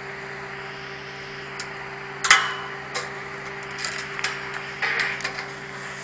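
Red tubular steel farm gate clanking and rattling as it is handled and swung open: one sharp ringing clank about two seconds in, then a run of smaller metal knocks and rattles. A steady low hum lies underneath.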